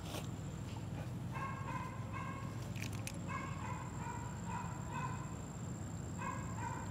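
Faint animal calls: short, nasal, honk-like notes repeating about once a second, often in pairs, over a steady low background hum.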